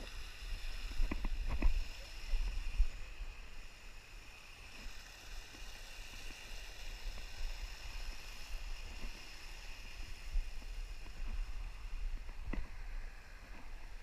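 Small waterfall on a spring-fed creek, running as a steady hiss of falling water, with low rumble and a few sharp knocks about a second in and near the end.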